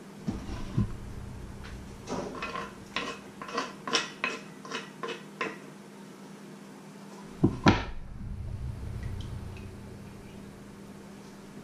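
A run of about a dozen quick kitchen-knife clicks and taps on a wooden cutting board and a steel bowl, about three a second. Then two loud knocks as the wooden cutting board is set down on the wooden worktop.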